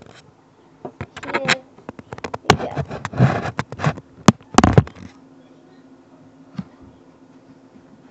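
Handling noise of a phone camera being moved about and set down: rubbing, clattering and several sharp knocks, loudest about two and a half and four and a half seconds in. After about five seconds only a faint low steady hum is left.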